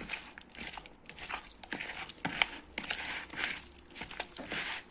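A bare hand squishing and turning raw, oiled and seasoned fish chunks in a plastic bowl: soft, irregular wet squelches and rustles with small clicks.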